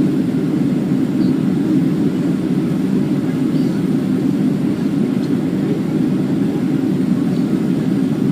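Boeing 767-300ER cabin noise: a steady low rumble of the jet engines and airflow, with no rise or fall.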